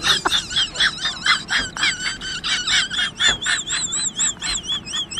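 A high-pitched, warbling squeal that pulses about three to four times a second, its pitch wavering up and down.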